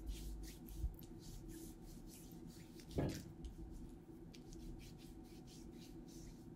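Faint rubbing of hands spreading liquid highlighter over the skin of an arm, in quick strokes about three a second, with a single soft knock about three seconds in.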